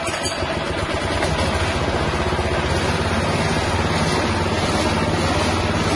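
Small 6.5 hp single-cylinder petrol engine just started, building up over the first second or so and then running steadily. It turns a belt-driven spice grinder.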